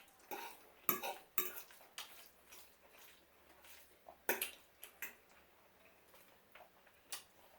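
Fork clinking and scraping against a plate of spaghetti, a handful of short clicks spread out with quiet gaps between.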